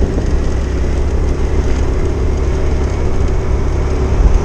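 A road vehicle's engine running at a steady cruising speed, with low road rumble and wind noise on the microphone.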